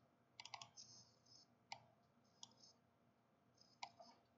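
Faint computer mouse button clicks: a quick double click about half a second in, single clicks near two seconds and two and a half, and another double click near the end.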